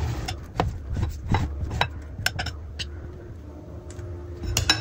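Softened butter being spread over a thin sheet of dough with a small utensil in a baking pan: soft scraping with scattered light clicks of the utensil against the pan, the loudest clicks near the end.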